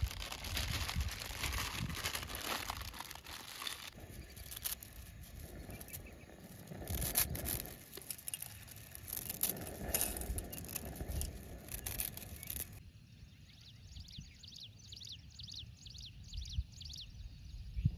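Dry instant noodles crackling and crunching as they are broken up by hand into a steel pot, with crinkling of the plastic packet. About thirteen seconds in the sound drops to a quieter stretch where a bird chirps rapidly and repeatedly.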